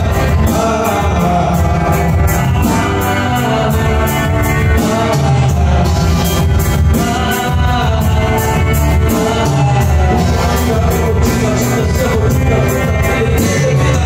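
Live band playing a Sufi song medley: sung melody over instruments and a steady drum beat.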